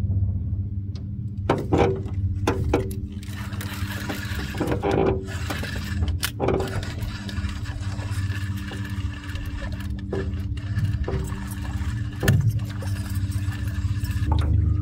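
A small boat's motor running steadily with a low hum, with scattered knocks and rattles from the boat and gear.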